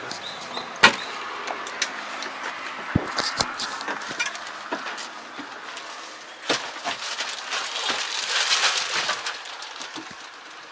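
Knocks and sharp clicks from someone climbing into a John Deere tractor's cab, the loudest click about a second in. Near the end comes a crackling rustle as the plastic cover on the cab seat is sat on.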